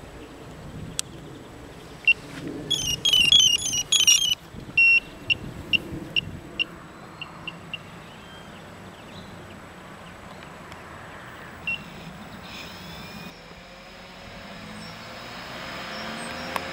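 A MikroKopter hexacopter's flight electronics giving their start-up beeps: a quick run of high beeps, then single beeps every second or so. Near the end its six electric motors start and a whir rises.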